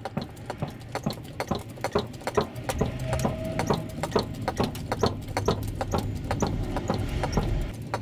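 Porta power hand-pumped hydraulic body-repair ram being pumped up against the dented sheet-metal nose: a rapid, uneven run of clicks and ticks over a steady low hum, with a brief squeak about three seconds in.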